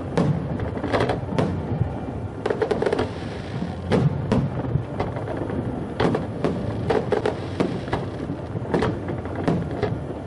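Aerial firework shells bursting one after another at an irregular pace, a dense string of sharp bangs, several seconds apart at most.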